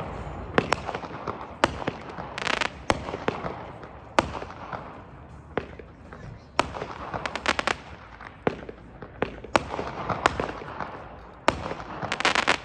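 Small consumer aerial cake (Shogun "Rock", 9 shots, 200-gram class) firing: repeated sharp launch thumps and bursts overhead, with dense spells of crackle about two and a half seconds in and again near the end.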